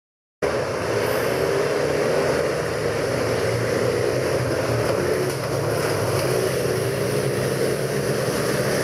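A pack of VW Beetle autocross cars' air-cooled flat-four engines running hard together as the heat starts. The sound cuts in suddenly about half a second in and holds steady.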